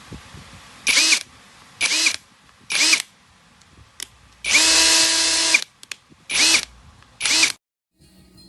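SILVEL cordless brushless 1/2-inch impact wrench triggered in six short bursts, five brief pulls and one held for about a second, each with a whine that rises briefly as the motor spins up.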